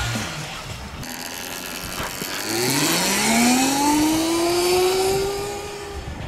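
Electric motorcycle riding past with road and wind noise, then the whine of its DA100S electric motor rising steadily in pitch from about two and a half seconds in as the bike speeds up.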